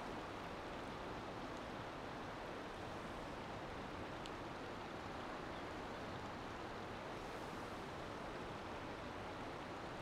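Mountain river rushing over rocky rapids: a steady, even rush of water.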